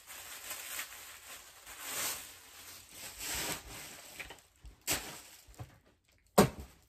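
Plastic packaging rustling and crinkling as garments are handled and pulled out of their bags, with a few short sharp noises near the end, the loudest about six and a half seconds in.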